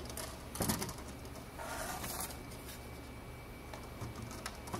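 A quarter-inch panel being handled and slid along the track of an aluminum extrusion sliding-door frame: a short clatter about half a second in, then a brief scraping swish around two seconds in, with light ticks, over a low steady hum.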